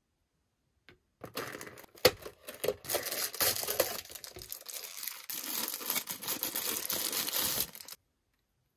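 Tissue paper crinkling and rustling as a wrapped toy figure is pulled out of a cardboard box compartment and unwrapped, with a sharp snap about two seconds in. It starts about a second in and stops abruptly near the end.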